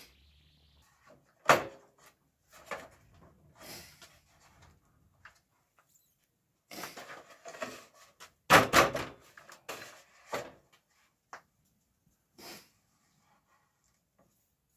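Spruce tongue-and-groove boards knocking and clattering against each other and the bench as they are handled and fitted together. Two sharp knocks stand out, one about a second and a half in and another just past halfway, among quieter scrapes and taps.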